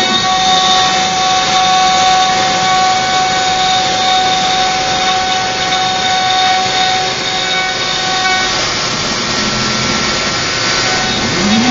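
CNC router's spindle running at a steady whine while its bit cuts into a pine blank, with continuous cutting noise. Near the end a rising whine comes in.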